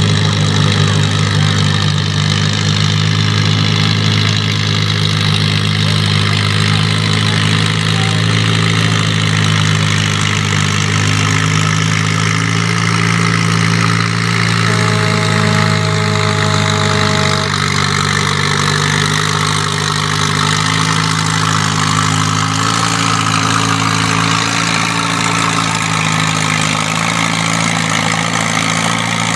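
Case 400 farm tractor engine running steadily, a deep, even engine note.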